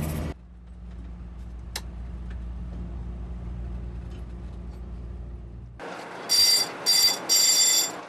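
Fishing boat's engine humming low and steady, with a single sharp click about two seconds in. Near the end an electric alarm bell rings in three short bursts.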